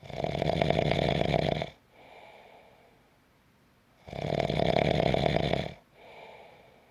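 A person snoring: two loud snores about four seconds apart, each about a second and a half long, each followed by a much softer breath.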